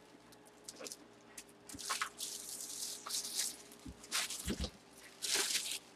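Clear plastic bag crinkling and rustling in irregular bursts as it is handled close to the microphone, with a soft bump about four and a half seconds in.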